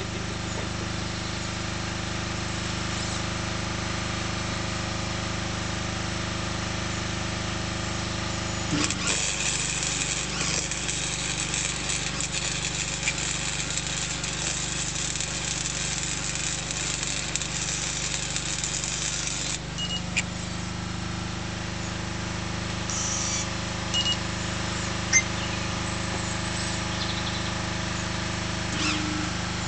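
Welder laying a run of weld for about ten seconds, a hissing crackle that starts about nine seconds in and cuts off abruptly, over a steady engine hum that runs throughout.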